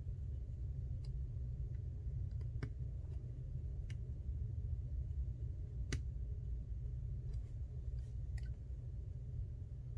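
Scattered faint clicks and ticks of small tools and an iPhone being handled, as the last two screws at the bottom of the phone are put in, over a steady low hum.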